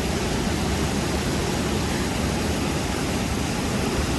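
Steady rushing of a waterfall: a heavy chute of river water pouring over rock, an even, unbroken noise.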